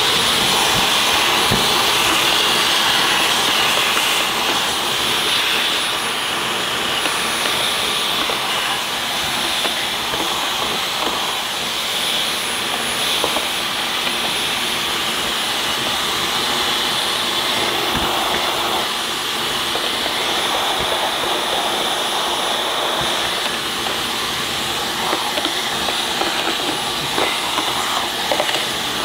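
Dyson V11 cordless stick vacuum running at a steady high whine, switched on abruptly at the start and sucking dust and carpet fluff out of an opened vacuum cleaner's base, with a few faint clicks.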